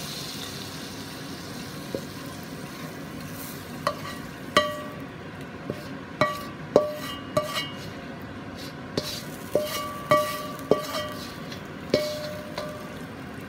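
A utensil scraping and knocking against a metal wok as food is pushed out onto a plate, with about a dozen sharp knocks that ring briefly, starting about four seconds in. A faint sizzle of the still-hot pan lies underneath.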